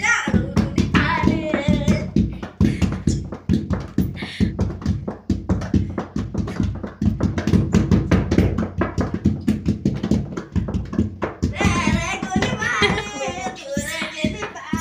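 Fast hand-drumming on a bed, played like a dhol beat, with a dense run of low thumps and slaps. Voices sing along at the start and again near the end.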